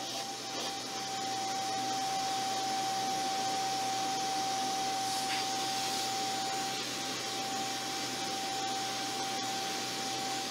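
Vacuum cleaner running steadily, a single steady whine over the rush of air, its hose nozzle passed over a cat's fur.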